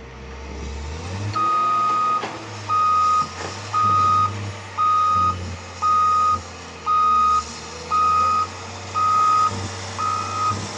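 Backup alarm on a heavy vehicle beeping steadily about once a second, starting a little over a second in, while the machine reverses. Its engine runs underneath with a low rumble.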